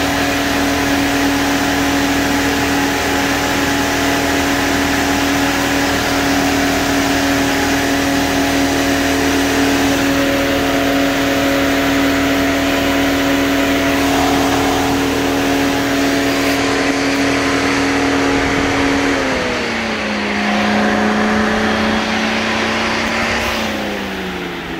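Volvo XC90 electric radiator cooling fan running under PWM control: a steady motor hum with a rush of air. About 19 seconds in its pitch steps down as the speed is turned down, and it drops again just before the end.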